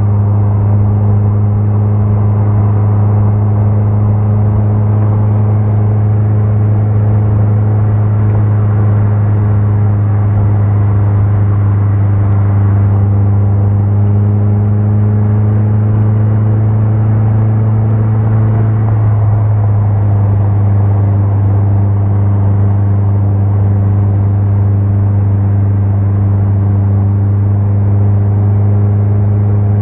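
Car engine running steadily under way, a loud low drone over road and wind noise; its note drops slightly about nineteen seconds in.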